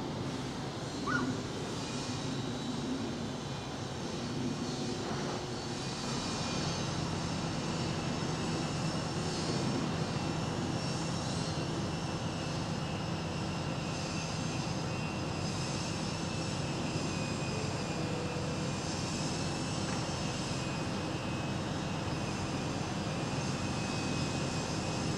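Steady, distant rumble of a Boeing 747-400's four Rolls-Royce RB211 jet engines as the airliner cruises high overhead, growing slightly louder about six seconds in.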